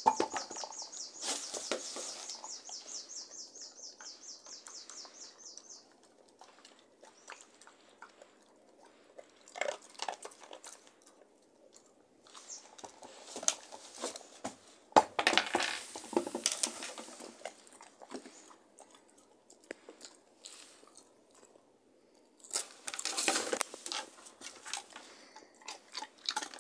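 Large dog chewing and crunching Kong Snacks treats while gnawing at a red rubber Kong toy, in bursts of crunching with quieter pauses between. In the first few seconds there is a quick, even run of clicks, about four a second.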